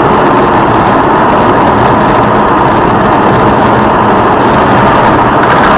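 Loud, steady vehicle running noise, an even drone of engine and road with no distinct impact.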